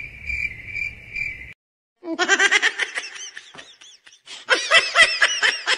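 A cricket-chirping sound effect, a high steady trill pulsing about twice a second, breaks off after about a second and a half. After a brief silence comes a run of fast, high-pitched laughter that grows louder towards the end.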